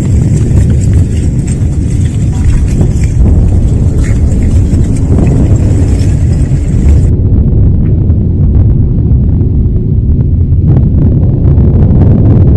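A loud, continuous low rumble with no distinct strokes, turning duller about seven seconds in as its higher part drops away.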